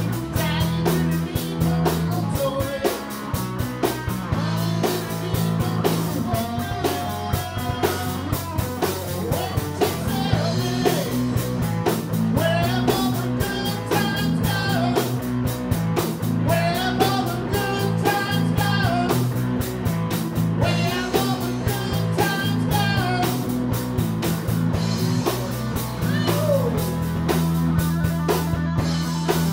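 Live rock band playing: a man singing over electric guitar, bass guitar and drums, with a steady bass line and drum beat.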